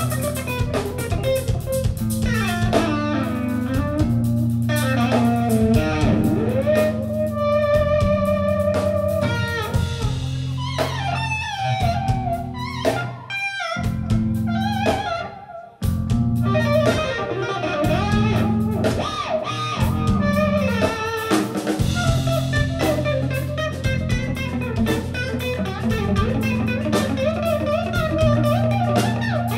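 Live metal band playing an instrumental passage: distorted electric guitars over bass and drum kit, with a lead guitar line bending and wavering above. About halfway through, the band thins out and nearly stops for a moment, then comes back in together at full level.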